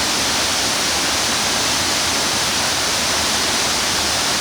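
Steady rush of water pouring down tiered step falls, an even hiss without breaks.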